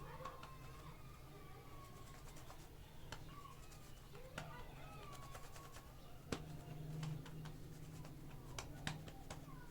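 Scattered light clicks and taps of small plastic clay tubs and lids being handled, with one sharper click about six seconds in, over a steady low hum.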